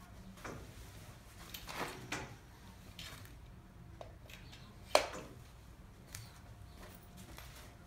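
Scattered knocks and light clatter of a tubular star balloon-arch frame being handled as it is stood upright and its leg fitted into the base flange, with one sharp knock about five seconds in.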